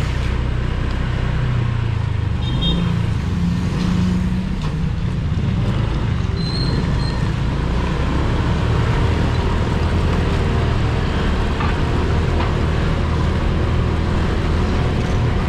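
Motorcycle engine running steadily under way, with wind and road noise on the microphone.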